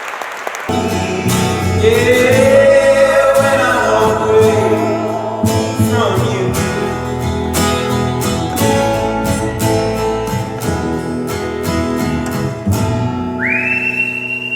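Acoustic guitar played with voices singing, the music stopping short near the end; then one high whistled note, held steady.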